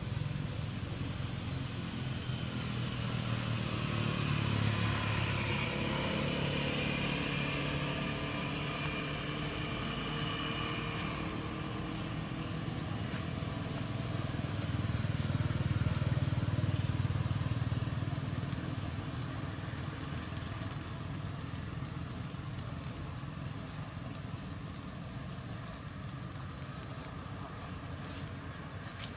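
Motor traffic: a low engine rumble that swells as vehicles pass, twice.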